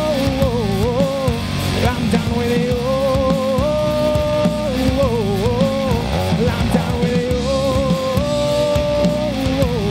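Rock band playing live on electric guitar, bass and drums, loud and steady. A held melodic line wavers and bends down, repeating about every three and a half seconds.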